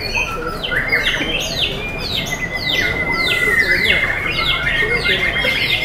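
White-rumped shama (murai batu) song: a fast run of repeated downward-sliding whistled notes, with one long steady whistle held from about two seconds in. A low murmur of voices sits underneath.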